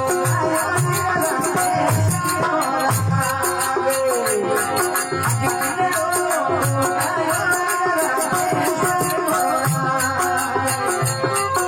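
Rajasthani desi bhajan music, mostly instrumental: a steady hand-drum beat under fast rattling jingle percussion, with a sustained melody line.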